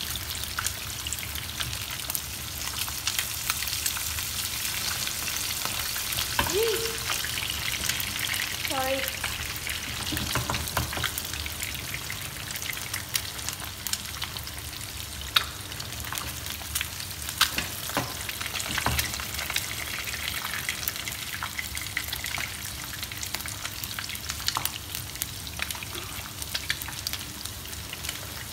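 Pomfret steaks shallow-frying in hot oil in a pan: a steady sizzle with frequent crackles and pops.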